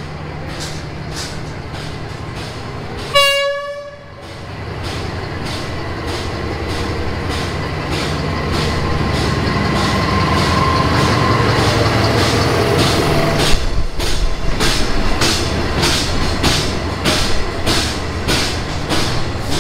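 Diesel-hauled passenger train pulling into a station. The locomotive gives one short horn blast about three seconds in, then the engine and the rumble of the coaches grow louder as the train draws alongside. Through the second half the wheels clack over the rail joints about twice a second.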